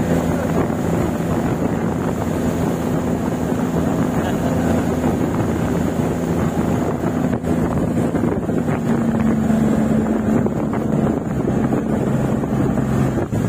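Boat engine running steadily under way, with wind buffeting the microphone.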